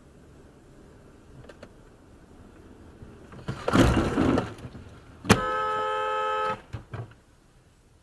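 A loud rushing noise lasting about a second, then a car horn sounding one steady blast of just over a second, heard from inside a car.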